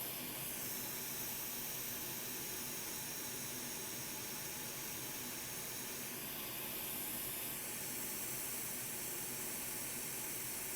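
Steady hiss of hot air blowing from a rework heater onto a circuit board, melting the solder under a connector so it can be lifted off.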